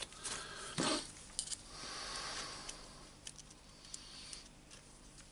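Handling noise at a workbench: a few light metallic clicks and rustling, with one louder scrape about a second in.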